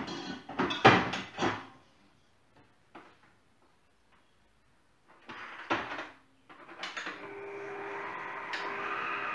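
A few sharp clatters and knocks in the first second and a half. About seven seconds in, an electric stand mixer starts and runs with a steady hum and a held tone, whipping egg whites with sugar.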